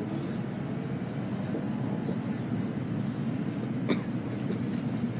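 Steady rumble of an N700A Shinkansen heard inside the passenger car while running. A faint rising whine fades about half a second in, and a single short sharp noise comes about four seconds in.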